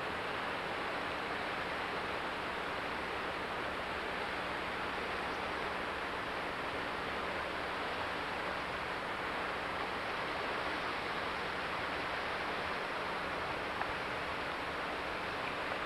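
Steady rush of water cascading over rock ledges.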